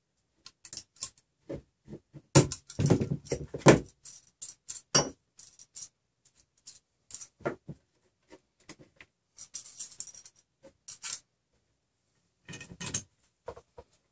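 Irregular clinking and clattering of a metal wrench and small metal hardware being handled and set down on a worktable, with plastic extruder parts knocking together. The loudest run of clatter comes about two to four seconds in, with a few more clinks later.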